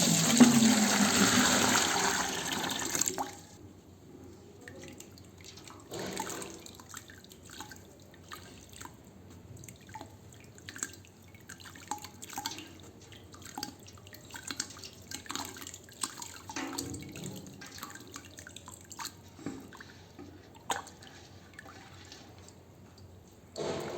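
Wet sand crumbling into water. For about the first three seconds there is a loud splashing rush, then scattered small drips and plops as pieces fall in.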